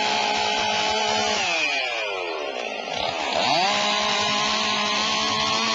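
Chainsaw running at high revs. The pitch falls from about a second and a half in, then climbs back up and holds high from about three and a half seconds.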